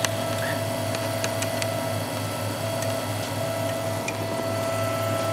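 MendelMax 3D printer running mid-print at slowed speed, its stepper motors making a steady whine over a pulsing low hum, with a few faint clicks.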